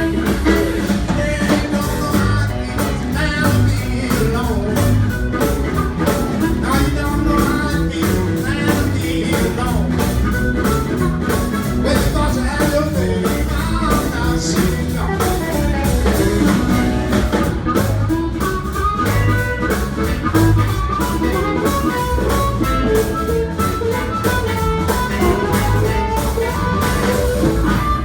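Live blues band playing, with guitar over a steady bass and drum beat.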